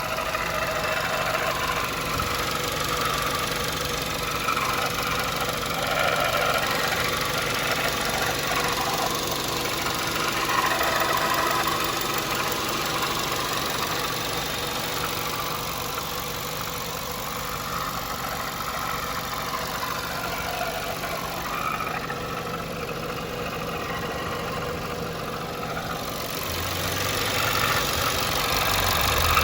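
Volkswagen Jetta 1.8 TSI engine idling, with a rattling, whirring noise from the alternator belt tensioner pulley. The noise is the sign of a worn tensioner pulley, which the owner cured by replacing the pulley and tensioner assembly. A low hum comes in near the end and the sound grows a little louder.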